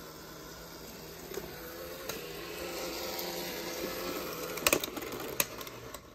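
Two-rail O scale model steam locomotive running under power on its track: a steady electric motor and gear whine that grows louder as it runs, with a few sharp clicks near the end.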